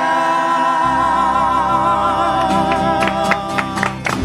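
Singers hold the long last note of a sung line, with vibrato, over a musical accompaniment. From about halfway, sharp rhythmic strikes build and are strongest near the end, as the song closes.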